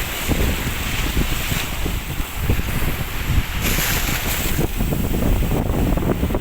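Sea waves washing onto a beach, with a brighter hiss of surf about four seconds in, under strong wind buffeting the microphone.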